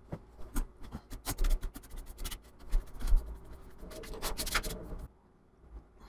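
Irregular light clicks, taps and scratches of something being handled, stopping abruptly about five seconds in.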